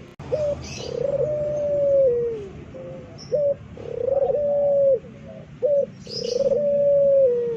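Puter pelung dove cooing loudly: three long, drawn-out coos that hold a level pitch and sag at the end, each followed by a short clipped note.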